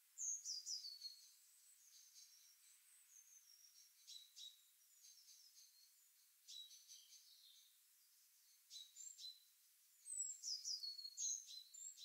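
Small songbirds singing and chirping in short, high-pitched phrases, some notes sliding downward. The song comes in clusters, loudest just after the start and again near the end, with quieter phrases between.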